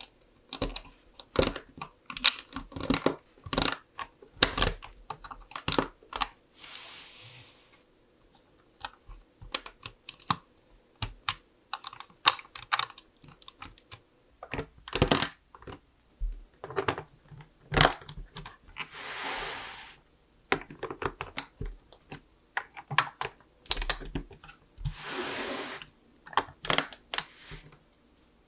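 LEGO plastic bricks and parts being handled, pressed and snapped together, making many irregular sharp clicks and rattles, with three longer scraping sounds of about a second each.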